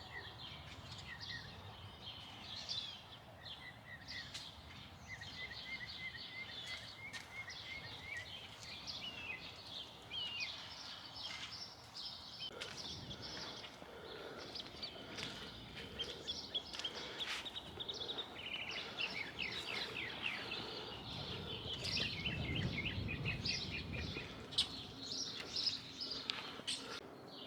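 Small birds chirping and trilling over faint outdoor background noise.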